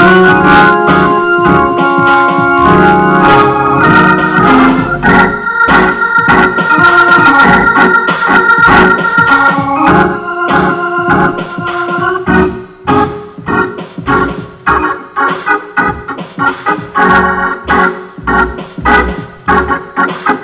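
Organ music: held chords, changing about twelve seconds in to short, repeated chords in a steady pulse.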